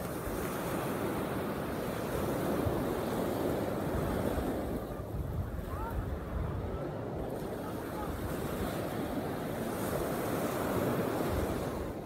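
Small waves breaking and washing up on a sandy shore, the wash swelling and easing, with wind rumbling on the microphone.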